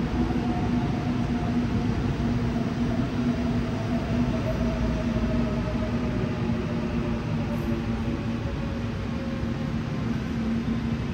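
Seoul Subway Line 4 electric train pulling into the station and slowing down: a steady rumble of wheels on rails, with the motor whine falling slowly in pitch as it slows.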